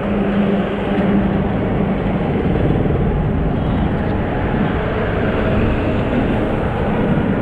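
Steady engine, road and wind noise from a two-wheeler riding in traffic close behind a truck, with wind on the microphone.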